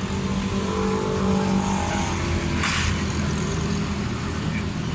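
Suzuki Cultus three-cylinder carburettor engine running, its pitch rising slightly as it is revved a little, with a brief hiss about halfway through.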